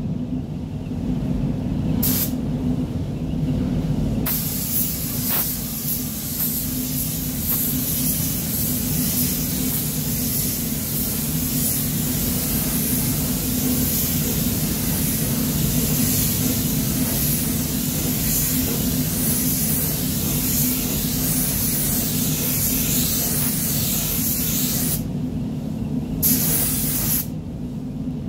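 Gravity-feed paint spray gun hissing as compressed air atomises paint. It sprays in long passes, with the trigger let off briefly in the first few seconds and twice near the end, over a steady low hum from the spray booth's fans.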